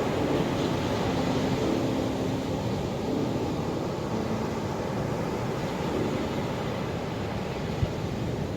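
Ocean waves washing onto a shore: a steady rush of surf.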